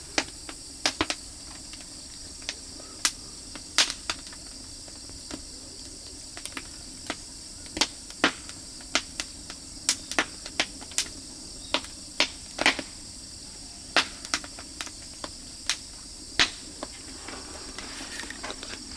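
Oak-firewood fire crackling, with sharp irregular pops one or two a second, over steady chirring of insects.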